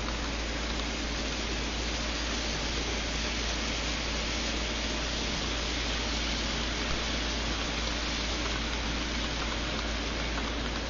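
N scale model freight cars rolling past on the layout's track: a steady, even rushing noise of the small wheels running on the rails, with no breaks or single knocks.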